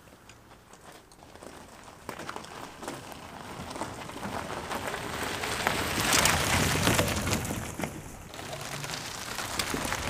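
Tyres of an electric trike and its towed bicycle caravan crunching and crackling over loose gravel, growing louder as they roll past about six seconds in, then easing off a little.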